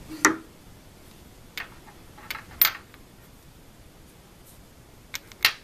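Sharp metal clicks and knocks, about six spread out over the few seconds, as a stepper motor and an aluminium mounting block are handled and set against the CNC machine's aluminium end plate.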